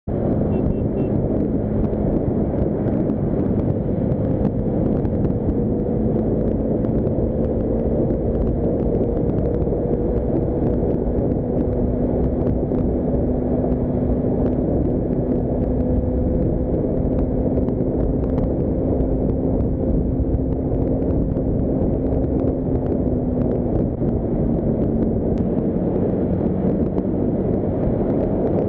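Bajaj Dominar 400's single-cylinder engine held at high revs during a top-speed run, a steady engine note under heavy wind blast on the microphone. The pitch creeps up slowly and drops away a few seconds before the end as the throttle eases.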